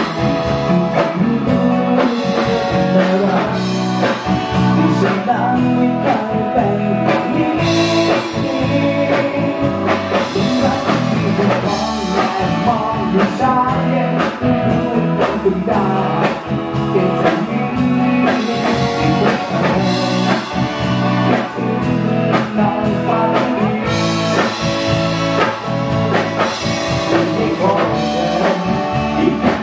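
A man singing into a microphone, backed by a live band with electric guitar and drum kit.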